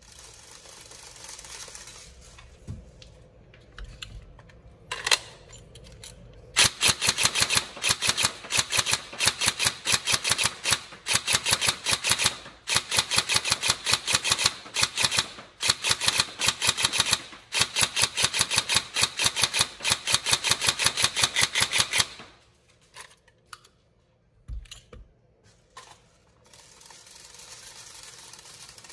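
Tokyo Marui HK416D Devgru Next Generation Recoil Shock airsoft electric gun firing on full auto in several long bursts of rapid, evenly spaced shots. The bursts start about a quarter of the way in and stop a little past three quarters. The rate of fire comes from a high-speed motor driving upgraded gears.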